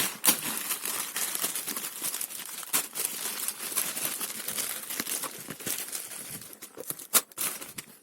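Parcel packaging crinkling and rustling as it is unwrapped, with many sharp crackles and clicks and one louder snap about seven seconds in.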